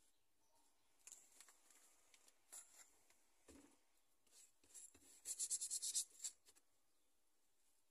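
Light scratching and rubbing strokes of hand work on the model diorama scenery, with a quick run of about eight fast scrubbing strokes around five to six seconds in.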